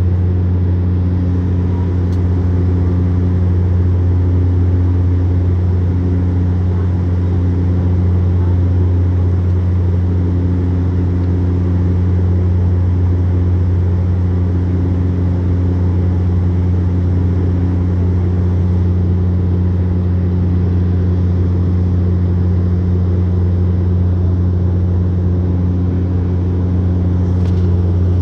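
Turboprop airliner's engines and propellers droning steadily in flight, heard from inside the cabin: a deep, even hum with higher tones above it, one of which swells and fades every few seconds.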